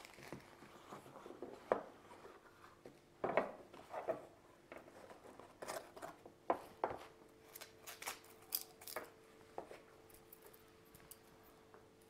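Handling of a Leatherman Tread bracelet multitool and its packaging: scattered light clicks and short rustles as the box and plastic wrapper are handled and the bracelet is pulled from its box insert, its metal links clicking against each other.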